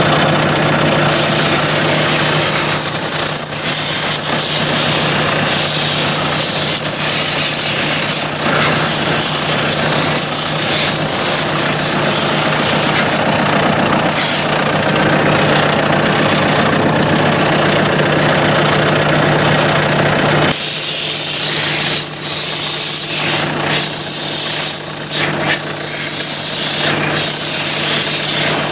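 Compressed air hissing loudly from an air gun as the radiator and cooler stack of a John Deere 5100M tractor are blown clean, over a steady motor hum. About two-thirds of the way through the hum drops back and the air hiss turns sputtering and uneven.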